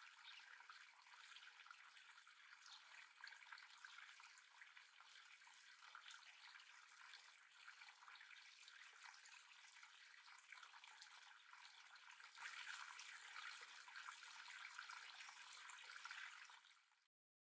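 Faint trickling of a shallow stream, growing a little louder about twelve seconds in and then cutting off suddenly near the end.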